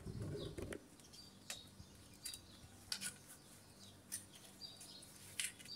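Faint, scattered clicks and light metallic clinks, roughly one a second, some ringing briefly, from hand tools being worked on car A/C parts.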